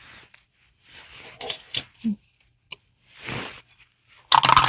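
Soft rustling and tapping of paper game cards being handled, then a small die rolled on the table, clattering briefly near the end.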